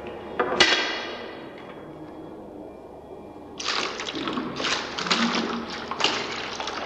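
Thick liquid pouring from a plastic jerrycan into a plastic bucket, splashing irregularly from about halfway through. A single ringing knock about half a second in.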